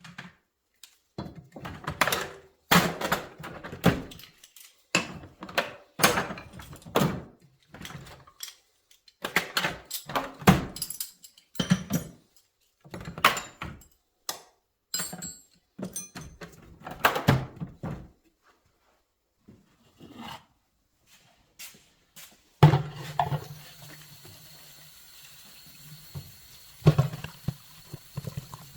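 Irregular knocks, thuds and clatters, like objects being handled and set down. About two-thirds of the way in, a steady hiss starts up under further thumps.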